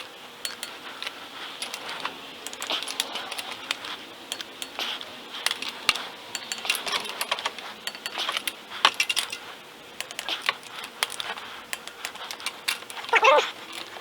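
Torque wrench ratcheting in quick runs of sharp metallic clicks as cylinder head bolts are tightened to 40 foot-pounds.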